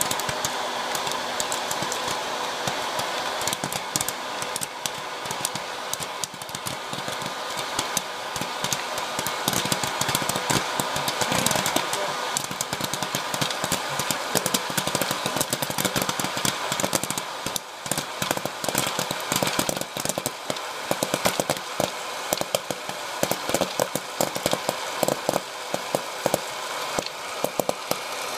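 Hot-air popcorn maker running: its fan blows steadily while kernels pop and popped corn rattles around the plastic chamber. The popping clicks come thick and fast, busiest in the second half.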